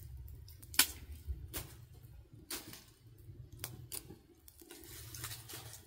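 Small fire of dry leaves and twigs being fed small sticks: scattered sharp snaps and cracks, about one or two a second, over a low steady rumble.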